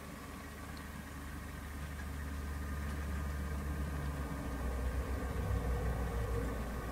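Model diesel locomotive hauling a goods train on model track: a steady low running hum that grows louder as the train approaches.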